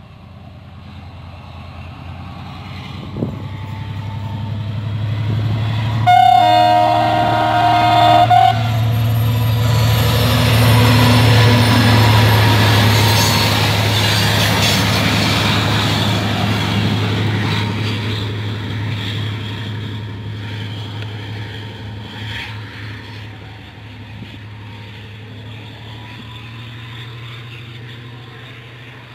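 Diesel train approaching and passing, its engine drone and wheel noise building to a peak and then slowly fading. It sounds its horn once for about two seconds, around six seconds in.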